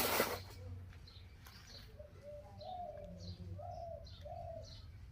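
A brief crinkle at the start, then birds calling: a few short cooing notes and repeated high chirps.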